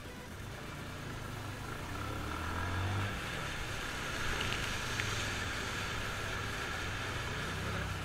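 Bajaj Pulsar single-cylinder motorcycle engine running at low speed, its note rising over the first few seconds, as the bike rides through floodwater over a causeway. Water splashes up from the wheels and hisses around the bike.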